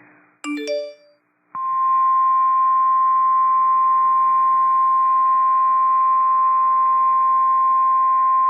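NOAA Weather Radio 1050 Hz warning alarm tone: one loud, steady high tone that starts about a second and a half in and holds, signalling that a warning broadcast follows. Just before it, a short electronic chime of a few notes.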